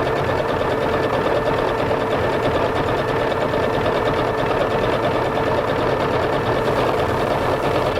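Singer 7466 electric sewing machine running steadily at speed, its needle and feed going fast as it sews a reinforcing stitch that goes forward, back and forward again for a triple row of stitching.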